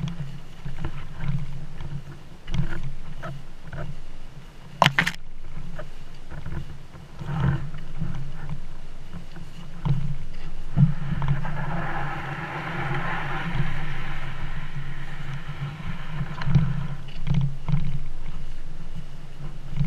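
Canoe carried upside down overhead on a rocky portage trail: footfalls and bumps of the hull come through as an uneven low thumping. There is a sharp knock about five seconds in, and a rushing noise swells for several seconds past the middle.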